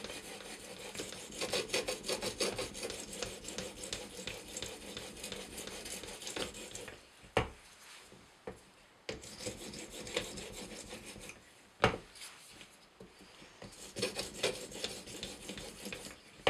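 An Edge Pro's 10K finishing stone is drawn in quick, very light alternating strokes along a steel knife edge: a steady rhythmic rasping. These are finishing strokes that line up the small irregularities in the edge. The stroking stops twice, and a few sharp knocks sound in the pauses, the loudest about twelve seconds in.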